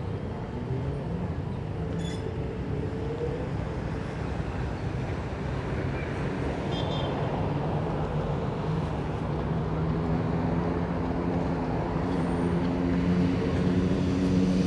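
City street traffic with a steady vehicle engine hum that grows louder in the second half.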